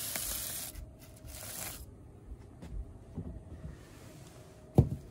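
Rustling and scraping as a dusty foam filter pad is pulled out of an energy recovery ventilator and handled, in two bursts in the first two seconds with softer scuffs after. A single sharp knock near the end.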